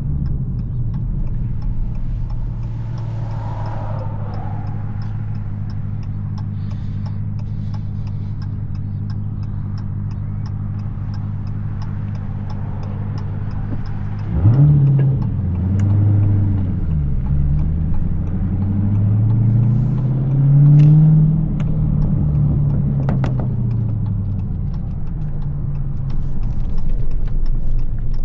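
Supercharged 6.2-litre Hemi V8 of a Dodge Challenger SRT Hellcat, heard through its exhaust, running at steady revs. About halfway through the revs jump, then climb and fall several times as the car accelerates and lifts off, with a few sharp cracks near the top of the sweeps.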